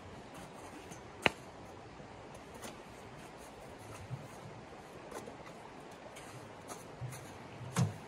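A few sharp clicks or knocks over a faint steady hiss: a loud one about a second in, a double one near the end, and smaller ticks between.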